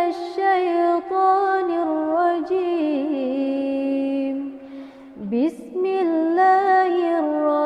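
Quran recitation: a single voice chanting in long, held, ornamented notes, with a short breath pause about five seconds in.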